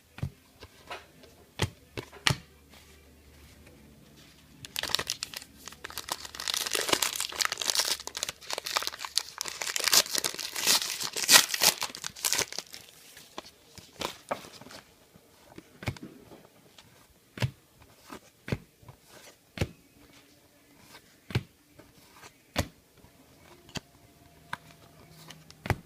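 Foil trading-card pack wrapper crinkling and tearing for several seconds, followed by a series of sharp clicks and taps as cards are handled and flipped.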